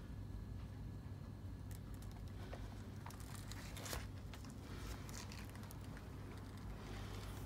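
Paper rustling and crinkling as a page of a picture book is turned by hand and a pop-up spread opens, with a sharp tap about four seconds in. A steady low hum runs underneath.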